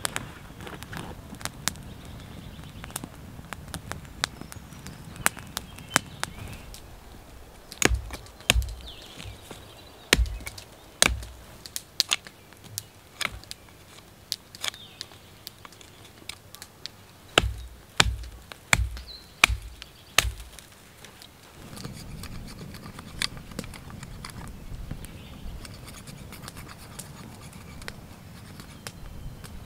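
Campfire crackling. Then a run of sharp knife chops into a wooden stick, each with a dull thud, coming in two clusters through the middle. The crackling fire returns near the end.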